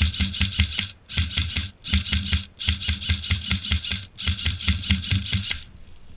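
Airsoft electric rifle firing in five rapid bursts of about ten shots a second, with short pauses between them; the firing stops near the end.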